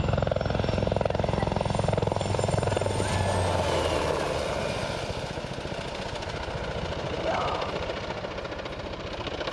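Sikorsky UH-60 Black Hawk helicopter flying low past, its rotor blades beating in a rapid chop with a heavy low rumble at first, then fading as it moves away.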